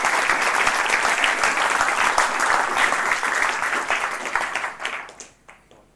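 Audience applauding at the end of a talk, the clapping dying away about five seconds in.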